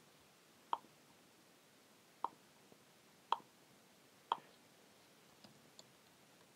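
Four sharp computer mouse clicks spaced a second or so apart, with a few fainter ticks near the end.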